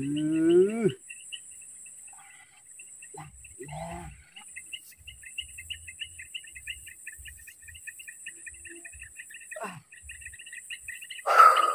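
Insects chirping steadily in rapid pulsed trills, over a constant high-pitched hiss. A short, loud noisy burst comes near the end.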